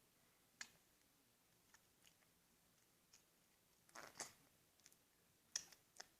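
Awake teeth grinding (bruxism): irregular sharp clicks and short grating scrapes of tooth on tooth, with a louder burst of grinding about four seconds in and again near the end.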